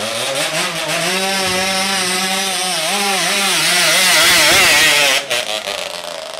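Longtail racing boat's engine running flat out as the boat speeds close past, its pitch rising at first and then wavering up and down, over a loud hiss. It is loudest about four to five seconds in, then drops off sharply.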